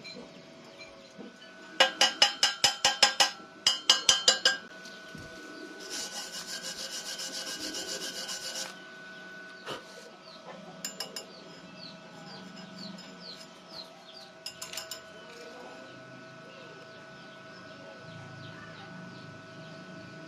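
Metal being scraped in quick rasping strokes, about five a second, in two short bursts and then a longer even run of rapid strokes. Faint bird chirps follow later.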